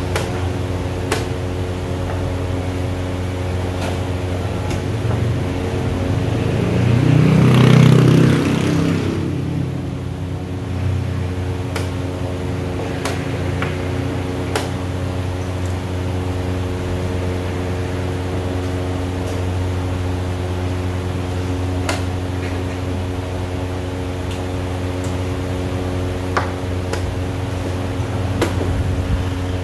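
Chess pieces being set down and a chess clock being pressed, heard as short sharp clicks now and then over a steady machine hum. About seven to nine seconds in, a louder rushing sound swells and fades, like a vehicle going past.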